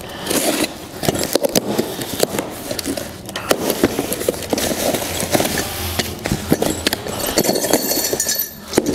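Small cardboard carton being cut open with a box cutter and handled: cardboard and packing tape scraping and crackling, with many sharp clicks and knocks.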